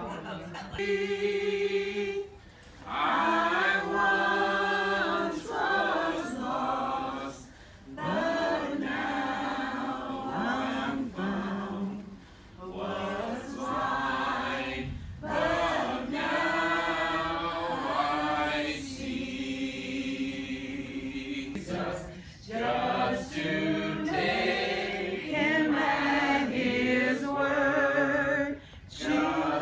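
A small group of men and women singing a hymn together without instruments, in long phrases with brief pauses between them.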